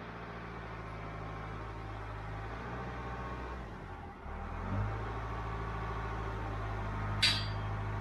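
Engine of heavy machinery idling with a steady low hum, which dips briefly about halfway through and picks up again. A single sharp metal clank sounds near the end.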